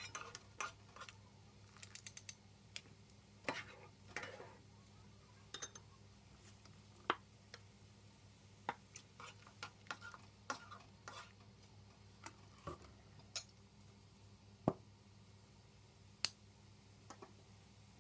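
Kitchen utensils and dishes being handled: faint, irregular clinks and knocks, a couple of dozen sharp clicks spread unevenly, over a low steady hum.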